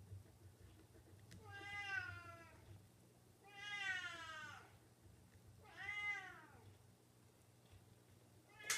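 Domestic cat meowing repeatedly: three drawn-out meows of about a second each with a falling pitch, and the start of a fourth, sharper meow at the very end.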